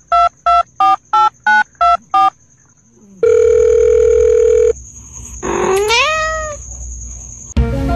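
Telephone keypad beeps, about seven quick two-tone presses a third of a second apart, as a finger presses at a cat's face. A steady phone tone follows for about a second and a half. Then the cat meows once, rising in pitch and levelling off.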